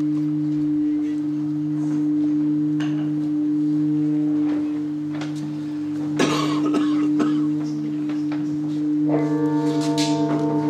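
Tibetan singing bowls ringing with a sustained low tone that slowly swells and fades. There is a brief noisy knock about six seconds in. From about nine seconds in, a second, hand-held bowl comes in with brighter overtones, its loudness wavering several times a second.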